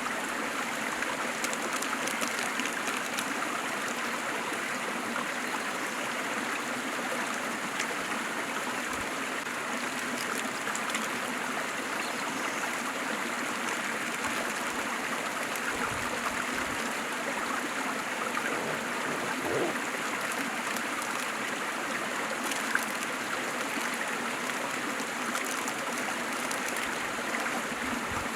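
Waterfall: water falling and rushing in a steady, even wash, with one brief click about three-quarters of the way through.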